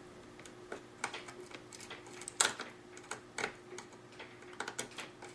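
Irregular small clicks of a screwdriver and screw against an HP laptop's metal and plastic chassis as a stubborn screw is worked back in, with one louder click about two and a half seconds in. A faint steady hum sits underneath.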